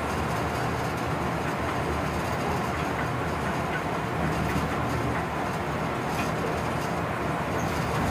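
Steady running noise inside the cab of a class 139 electric locomotive under way: a constant low rumble of wheels on rail.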